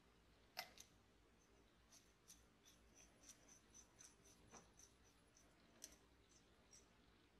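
Faint metal-on-metal clicks as a small threaded steel fitting is screwed by hand into a blowtorch's metal tube. There is a sharper click about half a second in, then a run of light ticks about two or three a second as the threads turn, and one more sharp click near the end.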